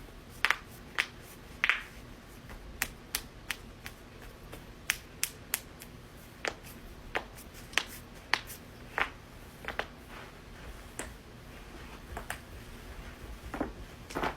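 A long series of sharp, separate joint-cracking pops, about twenty of them, irregularly spaced at one or two a second.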